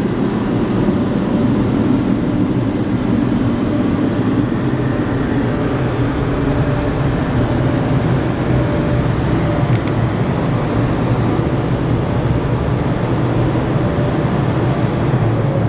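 Air dryer blowers on a Karcher Opti Wash 8000 in-bay automatic car wash gantry, running with a loud, steady rush of air heard from inside the car.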